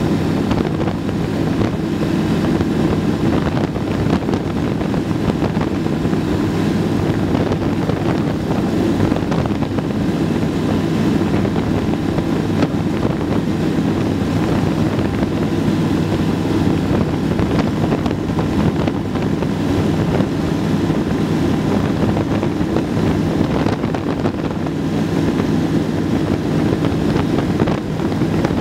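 Steady drone of the Zenith CH-701's engine and propeller heard from inside the cabin in cruising flight, with rushing wind noise.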